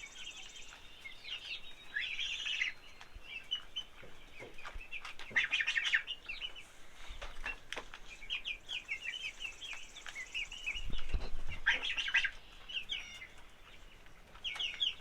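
A flock of young chickens (chicks) peeping and chirping continuously, with a few louder flurries of overlapping calls.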